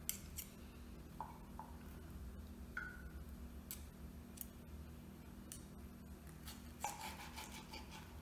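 Steel knife and fork cutting grilled sausage on a plastic cutting board: faint scattered clicks and scrapes, with a few short metallic clinks and a small cluster of clicks about seven seconds in.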